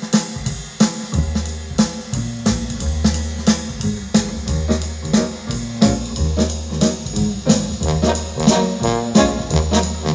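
A pair of Bose 101 MMG speakers with 4.5-inch full-range drivers playing jazzy music: a drum kit keeps a steady beat under long held bass notes, and brass comes in more strongly near the end.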